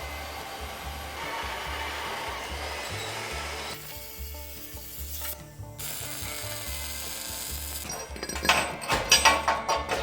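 Band sawmill blade cutting through a log: a steady rasping hiss that breaks off twice around the middle, then a run of sharp knocks near the end.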